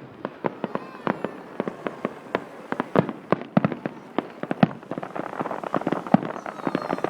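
Fireworks going off in a rapid, irregular string of sharp bangs, several a second, over a constant crackle.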